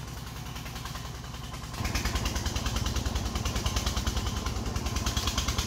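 Single-cylinder diesel engine of a loaded công nông farm truck running steadily. About two seconds in it gets louder and settles into a fast, even chugging as it pulls a load of bamboo uphill.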